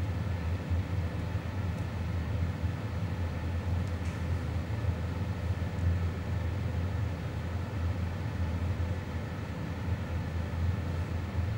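Steady low hum with an even background hiss and a faint constant tone, unchanging throughout, with no distinct handling sounds.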